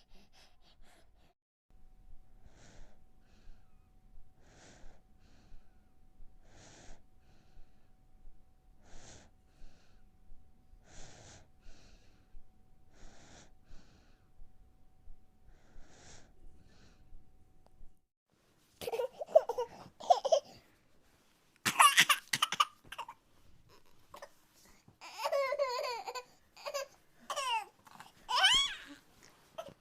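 A sleeping baby breathing slowly and softly, one faint breath about every two seconds. Near the two-thirds mark this gives way to louder baby babbling and laughing in short bursts.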